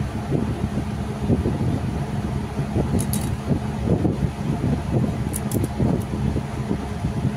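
A steady low hum and rumble throughout, with a few short, sharp clicks as guar (cluster bean) pods are cut with a small knife over a steel bowl. The clicks come about three seconds in and again in a quick group between five and six seconds.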